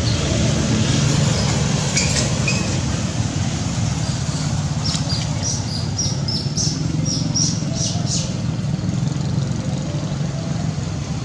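Steady low rumble, like a running engine or traffic. From about halfway in, a run of about a dozen short, high, falling chirps, a few each second.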